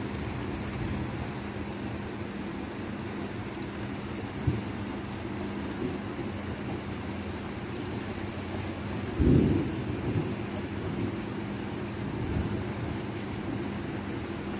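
Steady rain with a low rumble of thunder, and a short, louder low boom about nine seconds in.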